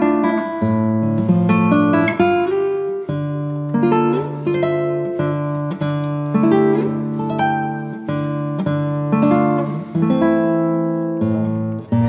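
Background music: acoustic guitar plucking chords.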